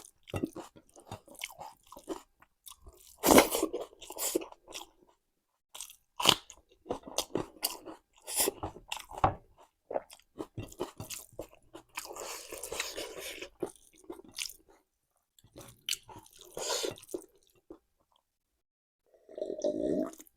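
Close-up mouth sounds of someone chewing raw salad with a hot chilli in it: irregular crisp, crunchy bites and wet chewing, with a short quiet pause near the end.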